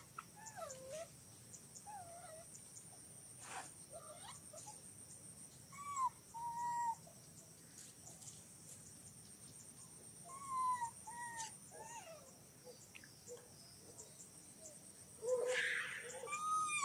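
Baby macaque giving short, arching, whistle-like whimper calls in a few bouts, the loudest near the end. A steady high insect buzz runs behind.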